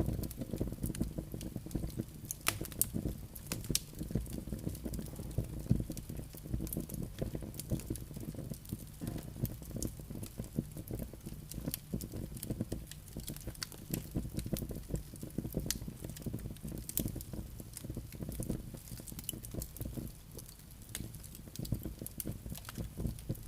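Wood fire burning in a fireplace: logs crackling and popping in dense, irregular clicks over a steady low rumble of flame.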